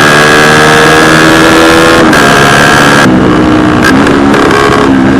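Motorcycle engine pulling hard with revs rising, a quick gear change about two seconds in. About three seconds in the throttle closes and the revs fall away.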